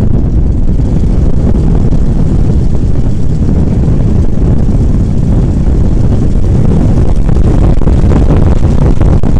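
Tiger Moth biplane's de Havilland Gipsy Major four-cylinder engine and propeller running, a loud, steady, low-pitched noise.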